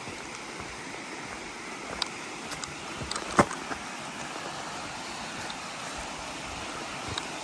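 Steady rushing of a creek's running water, with a few light clicks and one sharp knock about three and a half seconds in.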